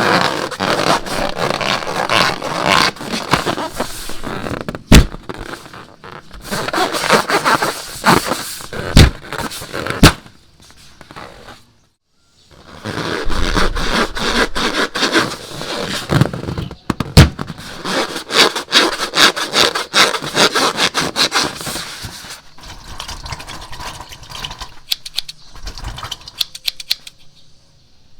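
Sticky slime being worked by hand: a dense run of wet crackles, squelches and clicks, with a few sharper snaps and a short break about halfway through.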